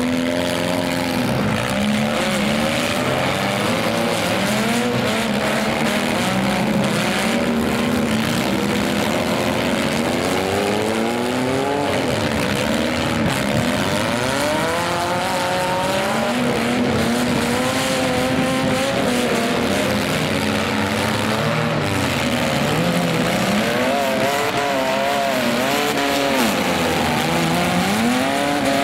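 Several demolition-derby minivan engines revving up and down at once, their pitch rising and falling again and again.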